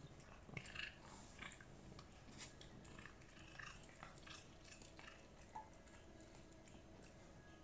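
Faint, irregular chewing and smacking of a cat eating shredded cooked chicken.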